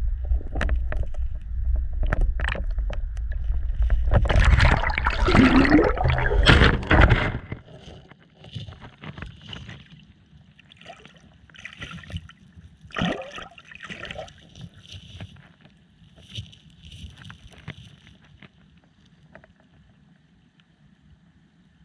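Water heard through a submerged action camera: a loud low churning that swells into a rush of noise about four to seven seconds in, then drops to quieter water sounds with scattered faint knocks and taps.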